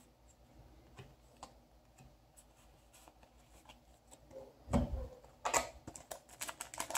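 Faint clicks of trading cards being slid off a stack one by one, then, about two-thirds in, a soft thump followed by the crinkling of a foil booster pack being picked up and handled.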